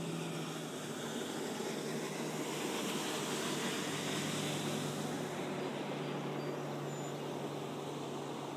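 A motor humming steadily at a low pitch under an even hiss of wind and water.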